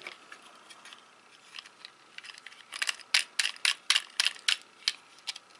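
Hard plastic clicks as a small black plastic monitor mount is handled and worked in the hands: faint light ticks at first, then a quick run of about ten sharp clicks starting a little under halfway in.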